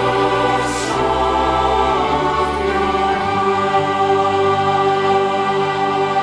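Choir singing long held chords of a gospel song, moving to new chords about a second in and again about three seconds in.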